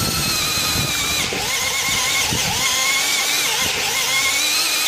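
Aneerpower BL-5120 cordless brushless hammer drill running under heavy load as a step drill bores through metal: a steady high whine from the motor and gearbox. The pitch sags briefly a few times as the bit bites.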